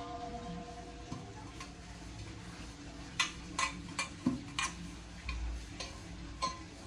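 Brass utensils being handled: the ring of a struck brass vessel dies away in the first second or so, then about seven light clicks and taps of metal on metal over the next few seconds.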